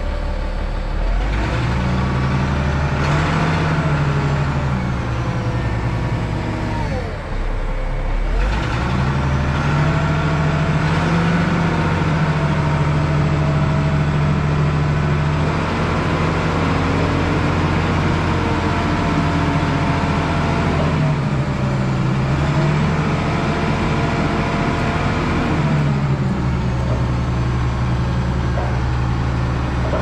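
Hough H80B wheel loader's engine running while the loader drives along, its pitch rising and falling several times as the throttle changes, with a brief dip a little before the halfway mark.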